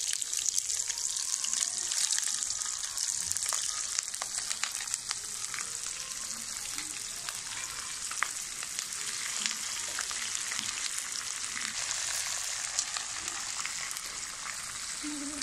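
Oil sizzling steadily in a black iron kadai over a wood fire as ingredients fry for pulihora, with scattered sharp crackles and a ladle stirring now and then.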